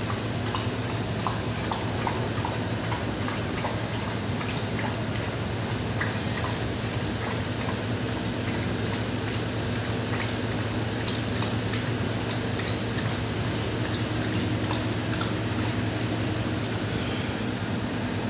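A dog lapping water from a metal basin: many quick, irregular wet laps and splashes, over a steady low hum.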